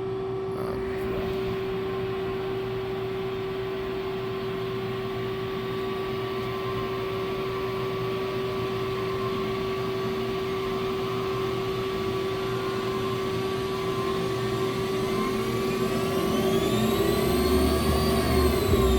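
Remedy SL25 CNC gang tool lathe running a turning program: a steady machine hum. Late on, the spindle's whine rises in pitch and falls back as the spindle speeds up and slows down.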